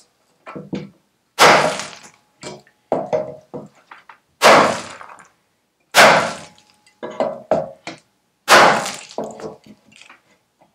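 Ball-pein hammer striking the rusty steel seat base of a BSA Bantam: four heavy blows a second and a half to three seconds apart, each dying away quickly, with lighter knocks and clatter between them. The blows are bending the splayed, cracked rear mount back toward its original shape.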